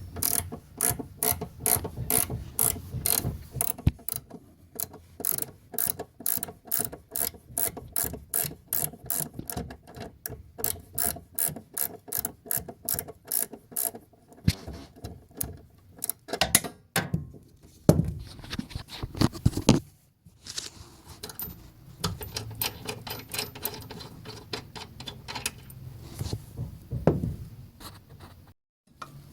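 Facom Quatro 4-in-1 metric ratcheting spanner being worked back and forth, its pawl clicking in long runs of about three to four clicks a second. About halfway through the clicking stops for a few knocks of metal on metal, then resumes more quietly.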